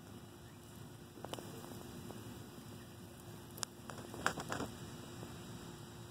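Faint steady hum with a few short clicks and crackles: one about a second in, another past three and a half seconds, and a quick cluster around four seconds in.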